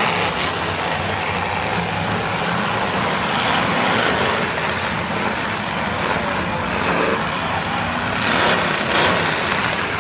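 Several old demolition derby cars' engines running together on the track in a loud, steady din, swelling a little near the end.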